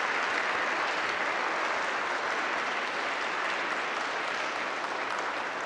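Congregation applauding steadily: a dense, even patter of many people clapping.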